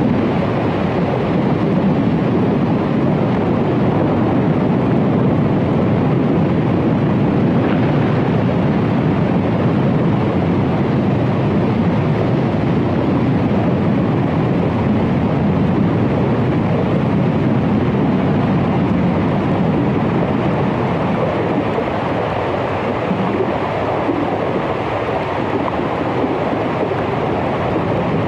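Hydrophone recording of melting glacier ice underwater: a steady, dense rushing noise with no distinct events.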